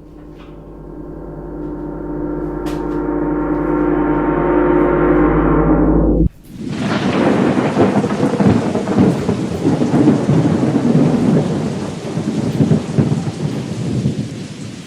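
A gong-like ringing drone swells steadily for about six seconds and then cuts off abruptly, giving way to the sound of heavy rain with thunder.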